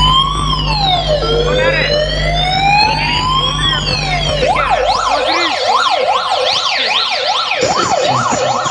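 Electronic siren effect played loud through a large loudspeaker sound system during a speaker check: a slow rising-and-falling wail, switching about four and a half seconds in to a fast up-and-down yelp about twice a second.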